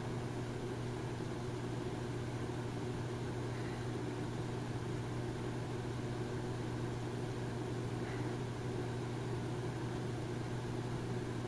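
A steady low mechanical hum, like a motor or engine running evenly, with a faint hiss over it.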